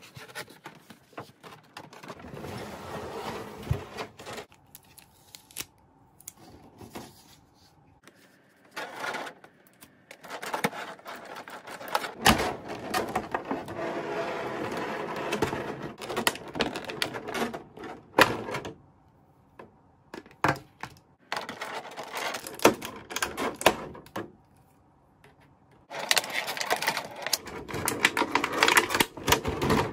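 Clear plastic toy packaging crinkling and crackling as it is handled, in several bouts with short quiet pauses between, dotted with sharp clicks and taps.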